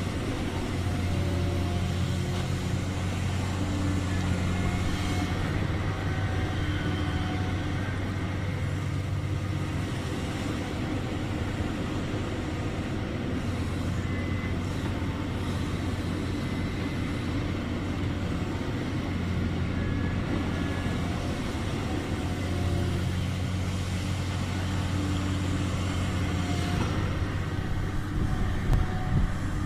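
Large excavator's diesel engine running with a steady low hum that eases off for a while and picks up again, with a few brief knocks near the end.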